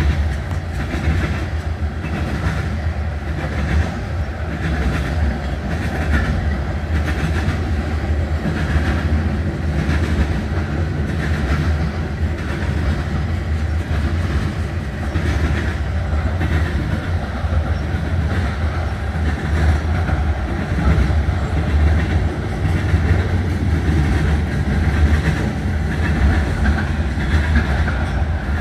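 Manifest freight train's cars rolling past: a steady low rumble with the wheels clicking over rail joints.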